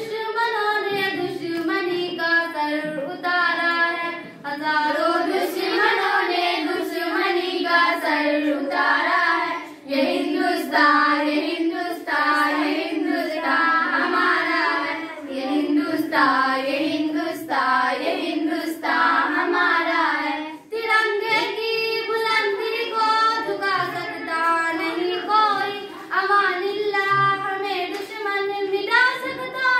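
Young girls' voices singing a Hindi-Urdu patriotic song into a microphone, with long held and gliding notes and a short breath-break about two-thirds of the way through.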